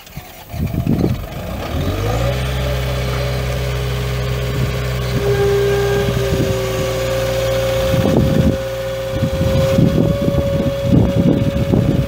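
Shibaura four-cylinder turbo diesel engine of a 2004 New Holland LS170 skid steer starting: a couple of seconds of cranking, then the engine catches, rises in pitch over about a second and settles into a steady idle. A steady whine joins about halfway, and irregular clattering comes in near the end.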